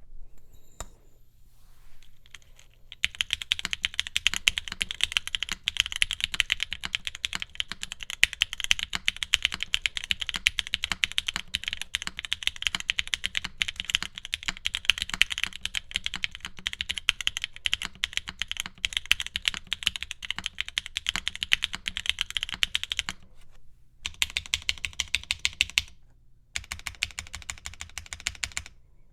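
Fast, continuous typing on a Monokei Jane v2 ME custom mechanical keyboard with Cream Soda switches, GMK keycaps and a PC plate. The rapid keystrokes start about three seconds in and break off briefly twice near the end.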